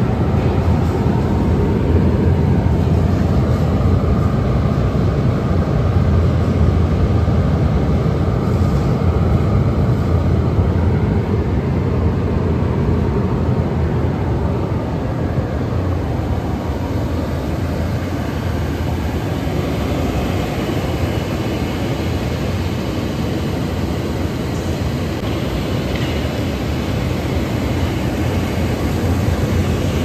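Steady low roar of a forced-air diesel burner firing into a horizontal carbonization furnace to preheat it.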